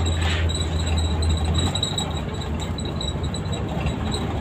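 Bus engine running and road noise inside the cabin of a moving coach, the low engine hum easing off a little under two seconds in, with light irregular ticking rattles throughout.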